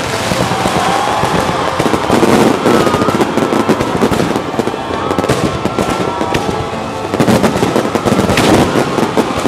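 Fireworks display: dense, rapid crackling and popping of aerial shells and comets, growing heavier about two seconds in and again near the end.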